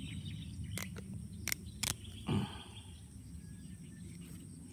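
A few sharp clicks and a short soft thump as a folding knife cuts the cord on a mesh fish bag, over a faint steady insect hum.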